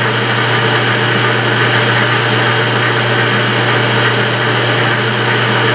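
Metal lathe running steadily while a drill bit in the tailstock bores into the end of a steel steering-box sector shaft: a constant low hum under the noise of the cut.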